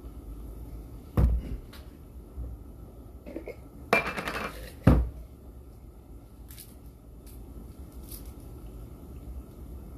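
Stainless steel wok lid knocking and clattering against the wok's rim: one knock about a second in, then a short metallic rattle and a second loud knock around four to five seconds in, over a low steady rumble.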